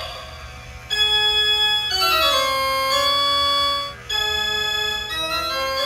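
Organ music: a held chord comes in about a second in, followed by a descending run of notes. After a short break near four seconds, it continues with further held chords.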